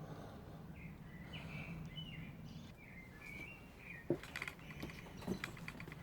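Bird chirping in a run of short, high, gliding calls for about three seconds, followed by a few light clicks and taps.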